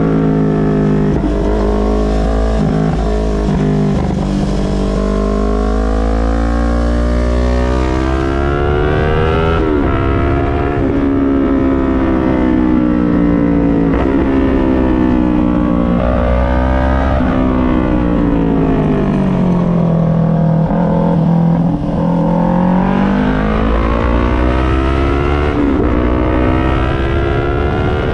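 Yamaha MT-03's parallel-twin engine through an SC-Project full exhaust system, revving up and down as the motorcycle accelerates and slows through a series of curves. The pitch climbs and falls several times, with a long drop past the middle before it climbs again.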